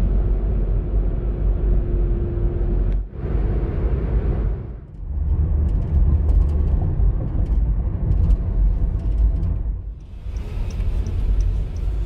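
Road and engine rumble heard inside the cabin of a moving Honda BR-V, in several short driving clips cut together, each change marked by a sudden break in the noise. A regular light ticking runs through the last two seconds.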